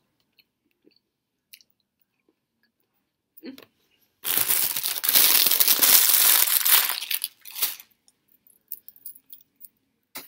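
A loud crunching, crackling noise close to the microphone, lasting about three and a half seconds from about four seconds in, with a few faint clicks before and after.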